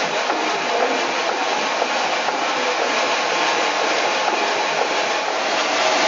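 Stationary steam engine running, its rods, crossheads and valve gear making a steady mechanical clatter over a continuous hiss.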